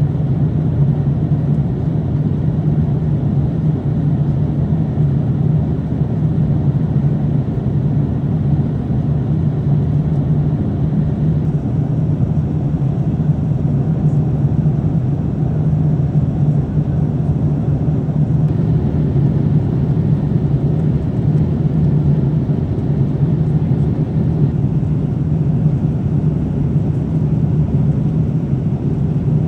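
Steady low rumble inside a Boeing 787-8 airliner cabin in flight: engine and airflow noise, unchanging throughout.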